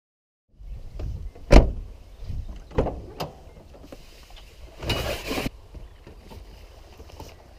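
Knocks, thumps and rattles of a golf bag full of clubs being handled in the back of a van, the loudest thump about one and a half seconds in, with a half-second rush of noise around five seconds in.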